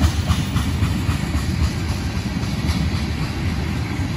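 Loaded ethanol tank cars of a freight train rolling past: a steady low rumble of steel wheels on rail, with a quick run of wheel clicks in the first second or so.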